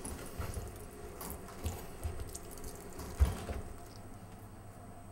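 Half a kiwi being pressed and twisted on a stainless-steel citrus reamer to squeeze fresh juice: wet squelching and scraping with irregular soft knocks and clicks, the loudest about three seconds in.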